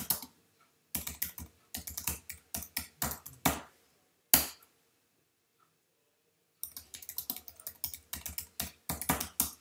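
Typing on a computer keyboard: a run of keystrokes, a lone harder key press (the Enter key) a little over four seconds in, a two-second pause, then another quick run of keystrokes.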